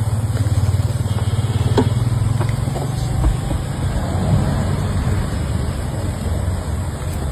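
A small engine running steadily with a fast, even low chugging.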